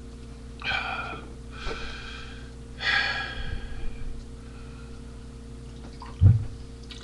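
A man's heavy, gasping breaths, three in a row over about three seconds, then a short low thump about six seconds in, over a steady background hum.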